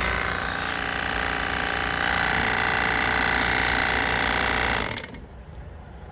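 Koshin MS-250C electric sprayer's pump running steadily with a fast mechanical chatter, then switched off about five seconds in.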